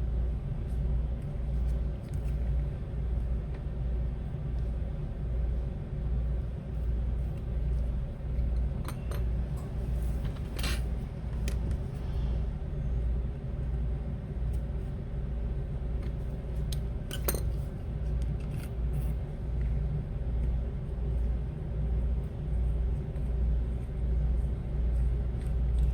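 A low hum that pulses about once a second, with a few sharp clicks of small metal tools against the phone.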